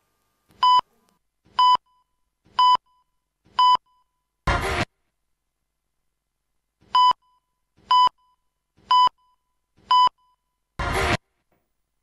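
Countdown beeps: four short, high electronic beeps a second apart, then a split-second burst of sound from a seven-frame film clip. The whole sequence plays twice.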